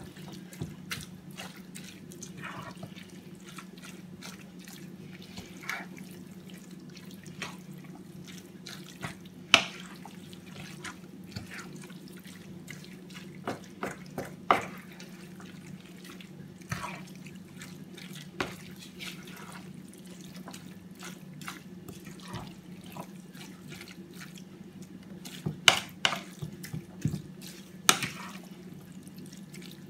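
Hands kneading and squeezing a wet osbane stuffing in a bowl: scattered soft squelches and clicks, over a steady low hum.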